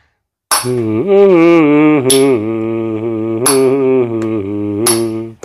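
A man humming a wavering melody while clacking musical spoons on the beat, a sharp click about every second and a half.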